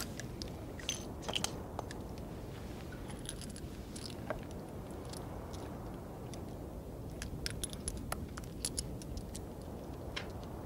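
Revolver being reloaded by hand: scattered small metallic clicks and clinks of cartridges and the cylinder being handled, in clusters about a second in, around three to four seconds in and again from about seven to nine seconds in, over a steady low background rumble.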